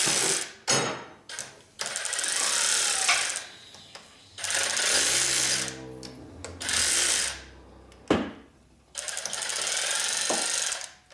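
A shop air tool running in repeated bursts, mostly one to two seconds long, with short pauses between.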